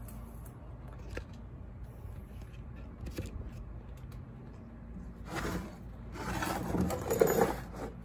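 A cut-off saw being handled and turned around on a wooden workbench: a few light clicks, then scraping and knocking from about five seconds in, loudest near the end.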